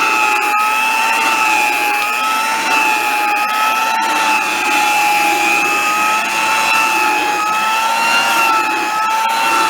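Vintage Hamilton Beach hand vacuum cleaner running steadily: a loud motor whine that wavers slightly in pitch as the nozzle's load changes. A couple of brief knocks come about half a second and four seconds in.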